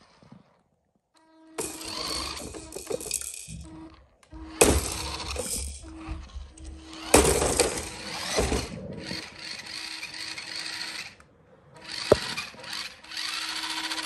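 Electric motor and gearbox of a Rhybor RC monster truck whining in four bursts of a few seconds each as it is throttled on and off. Three sharp knocks stand out as it bumps into a plastic baby walker.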